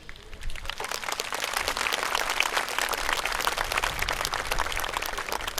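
Audience applauding: many hands clapping, swelling over the first second and thinning out near the end.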